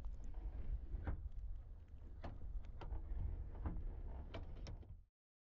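Faint low wind rumble on an outdoor microphone, with scattered small clicks and ticks; it cuts off suddenly about five seconds in.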